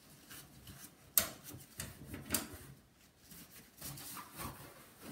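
Handling noise from cleaning a plastic CRT monitor casing with a tissue: a few sharp clicks and knocks, the loudest about a second in, with soft rustling between.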